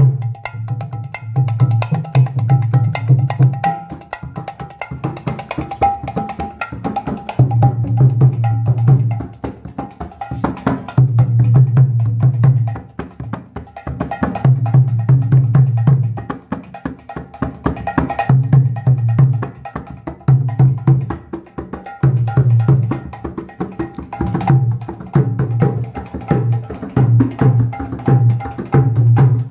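Nitai Balaram clay mridanga played solo: fast, dense strokes on the small treble head, which rings at one steady pitch, with groups of deep bass-head strokes coming in every few seconds.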